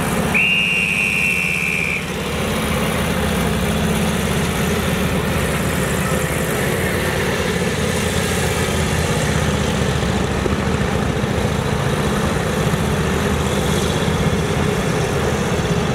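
Vintage motorcycle engines running steadily, with a motorcycle carrying several riders passing by. A high, steady tone sounds for about a second and a half near the start.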